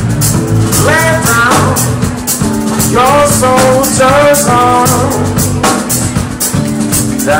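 Live band playing: a trumpet melody of held notes that scoop up into pitch, over a drum kit with a steady hi-hat pulse and a bass line.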